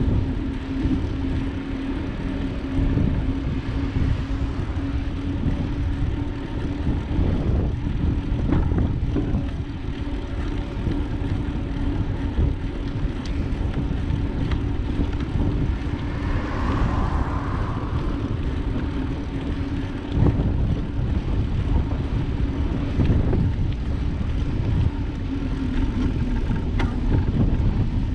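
Wind and road rumble on the microphone of a camera riding on a moving bicycle, with a steady low hum throughout and a brief swell of higher noise about two-thirds of the way in.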